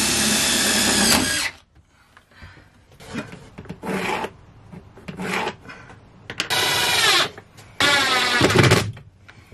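Cordless drill driving screws up into a wooden shelf board, its motor whining in bursts: a long one at the start, softer short ones in the middle, and two loud ones near the end.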